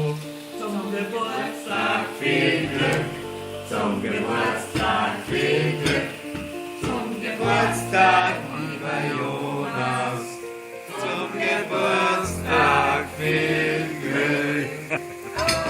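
Music with singing voices, choir-like.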